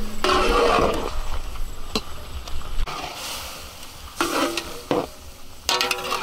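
Food sizzling in a pan as it is stirred, loudest in the first second, with a few sharp clicks of a utensil against the pan. Short pitched, voice-like sounds come about four seconds in and again near the end.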